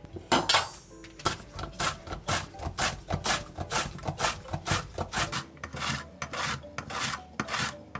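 Zucchini being rubbed back and forth across a stainless steel julienne slicer, a rasping scrape on each stroke at about two to three strokes a second as the blades cut it into thin strips.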